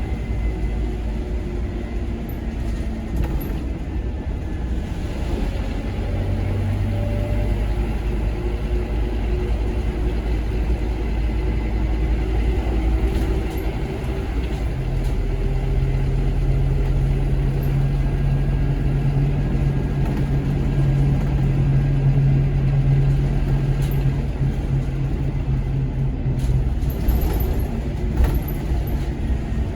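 Scania K230UB Omnilink bus's five-cylinder diesel engine running under way, a steady low rumble. A steadier, louder engine drone sets in about fifteen seconds in and drops away about twelve seconds later.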